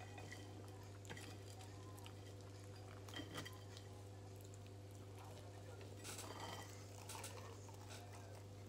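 Faint scattered clicks and rustles of a person eating and handling food packaging at a table, over a steady low hum.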